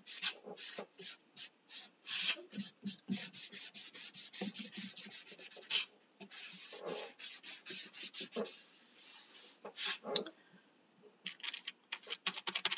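A paint-soaked baby wipe scrubbed back and forth over a laser-cut wooden arch: a rapid run of short rubbing strokes, applying thinned paint like a stain.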